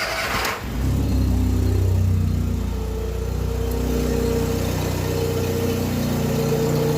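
VW Gol engine starting: the starter cranks briefly and the engine catches in under a second, then idles steadily. There is no bearing noise from the belt drive, because the failed idler pulley bearing has been replaced. The only odd note is a deeper sound from a dented exhaust.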